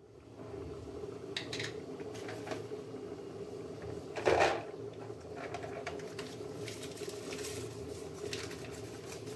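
Rajma curry boiling under a glass lid on a gas burner: a steady hum and bubbling with a few faint pops, and one louder brief knock about four seconds in.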